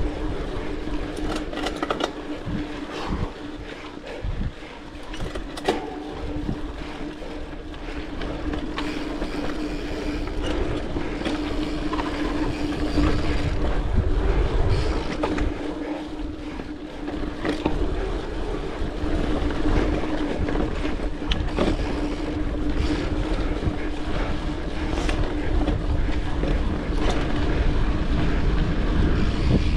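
Mountain bike rolling along a dirt trail: a steady hum from the tyres and drivetrain over a low rumble, with scattered knocks and rattles as it goes over bumps.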